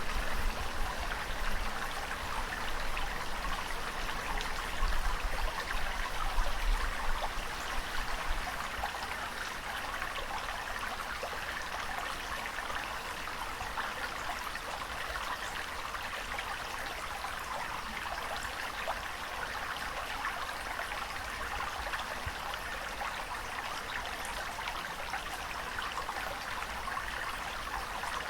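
Steady rushing water with fine splashing and trickling, with a low rumble under it for the first several seconds.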